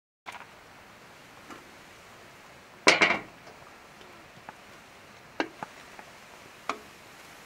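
Cookware and utensils clinking: a loud clatter about three seconds in, then a few single sharp clinks, over a faint steady hiss.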